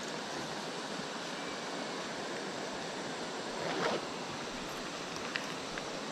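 Steady rushing noise of a river flowing over a stony bed, with a short scrape about four seconds in and a couple of faint clicks near the end.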